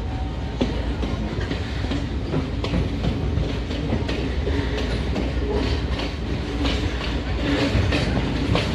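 Passenger train running along the track, heard from inside a carriage: a steady rumble with scattered clicks and rattles of the wheels over the rails.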